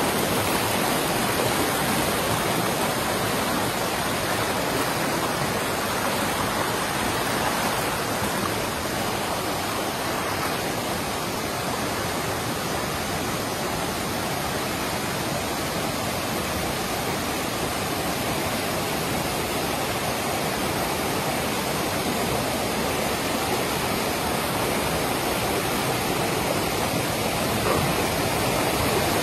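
Rocky mountain river rushing over boulders and small cascades: a steady, loud rush of whitewater.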